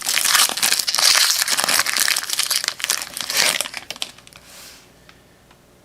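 Plastic wrapper of a trading-card pack crinkling and crackling as it is torn open and handled, busy for about four seconds, then dying away.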